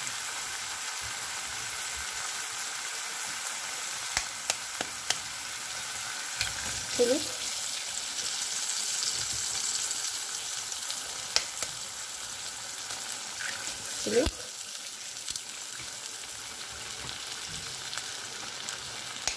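Eggs frying in oil in a ceramic-coated frying pan, a steady sizzle. Twice, about seven and fourteen seconds in, a sharp knock as another egg is cracked and dropped into the pan, the second knock the loudest, with a few lighter clicks between.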